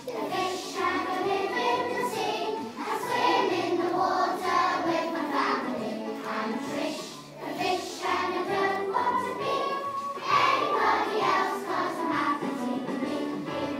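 A class of young children singing a song together.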